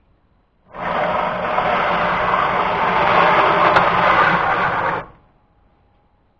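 Small electric motor on a homemade model train running loudly and steadily, switched on about a second in and cut off abruptly about four seconds later.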